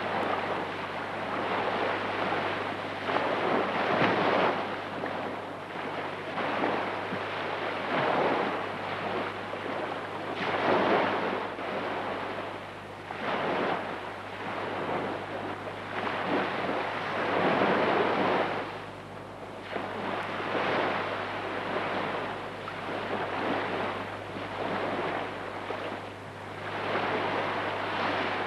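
Surf washing in, a rushing noise that swells and falls back every couple of seconds, over a steady low hum.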